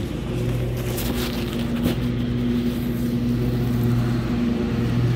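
An engine running steadily in the background, an even low hum that wavers slightly, with a few brushing sounds of a glove against the microphone.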